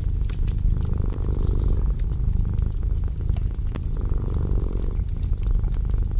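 Domestic cat purring steadily, the purr swelling and easing every few seconds, over the light crackles and pops of a wood fire.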